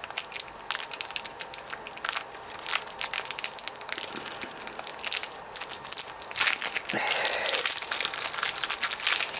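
Plastic blister packaging crinkling and crackling in irregular snaps as a Bakugan toy is worked out of it by hand, busiest and loudest in the last few seconds.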